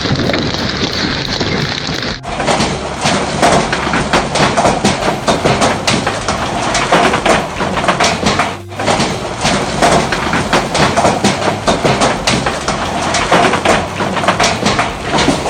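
Hailstones pelting down in a dense, continuous clatter of hits on hard surfaces. Before the first cut about two seconds in there is a hissier stretch, and another short break comes a little past the middle.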